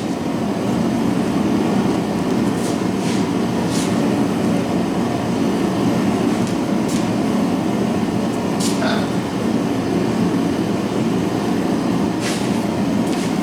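Propane forge burner running steadily, with a few faint metal clinks scattered through.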